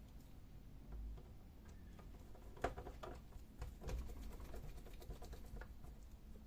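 Faint scattered clicks and small knocks of a screwdriver and plastic parts being handled while screws are driven back into a printer's replacement ADF hinge, the sharpest knocks about two and a half and four seconds in.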